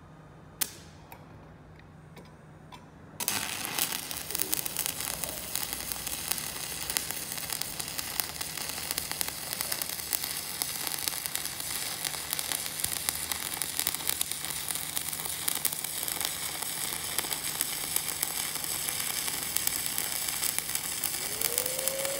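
Stick welding arc from a 6013 electrode at about 115 amps. It strikes about three seconds in and then burns with a steady crackling sizzle.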